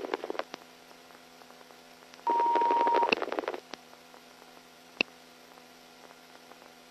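Police two-way radio channel between transmissions: a short burst of static carrying a steady beep of just under a second, then a few sharp squelch clicks, with near silence in between.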